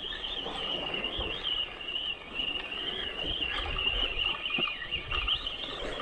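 Shimano Saragosa 8000 HG spinning reel being cranked on the retrieve, giving a continuous high squealing whine that wavers in pitch with the turns of the handle. Low wind rumble on the microphone sits under it.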